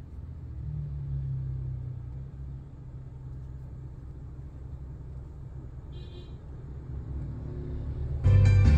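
Low steady rumble of a stationary car heard inside its cabin, with a hum that fades after the first couple of seconds. There is a short beep about six seconds in, and music from the car's Android head unit starts loudly near the end.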